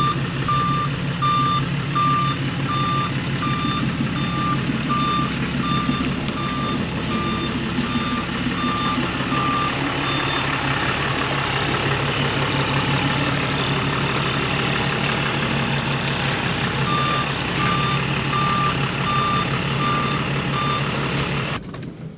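Reverse warning beeps, a steady high-pitched beep about twice a second, over the Ram truck's Cummins diesel engine running as the truck is backed and manoeuvred into a parking spot. The beeps pause in the middle and come back. The engine falls silent near the end.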